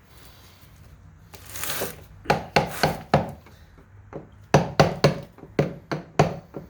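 A brief hiss, then a quick string of sharp clicks and knocks, about three a second, from hand work on the DEF tank's parts.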